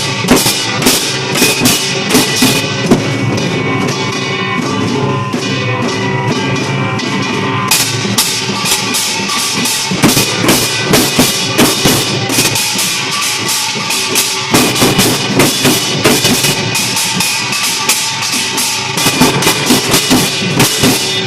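Percussion ensemble playing a fast, dense drum rhythm.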